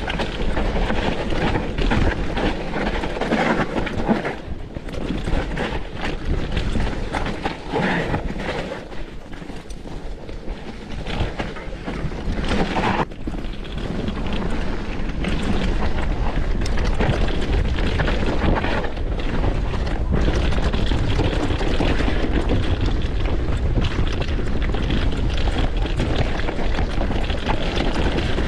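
Mountain bike riding down a rough forest trail: wind buffets the microphone with a low rumble while the tyres roll over roots and rocks and the bike rattles, with frequent knocks. About halfway through the rumble grows louder and steadier.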